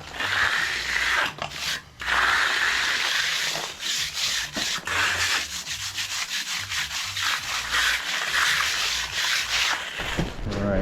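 Hand finishing tool scraping and rubbing over wet concrete in repeated strokes, longer sweeps at first and shorter, quicker ones from about four seconds in, as the sidewalk surface is worked smooth before brooming.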